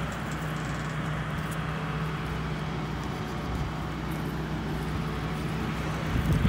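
Engine of the machine moving the manufactured home into place, running at a steady speed with an even low hum.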